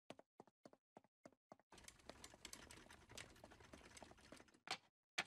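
Faint, quick clicks and taps, a few a second, thickening into a denser soft clatter in the middle, with two slightly louder clicks near the end.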